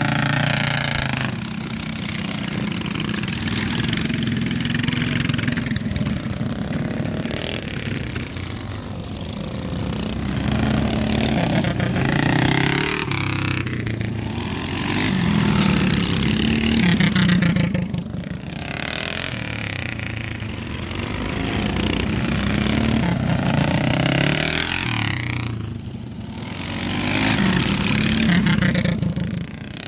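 Several minibike engines revving hard, their pitch climbing and dropping again and again as the bikes accelerate and back off around the track. The sound swells and fades every few seconds as bikes pass close.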